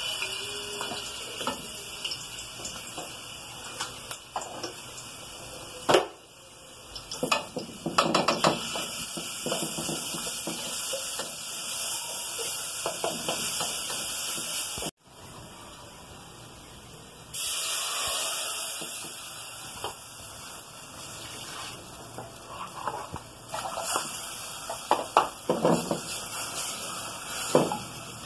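Garlic sizzling in a hot aluminium pot with a steady hiss while a spoon stirs and knocks against the pot. After a break about halfway, the hiss returns as a spoon stirs thickening cornmeal porridge (angu), clinking and scraping against the pot several times.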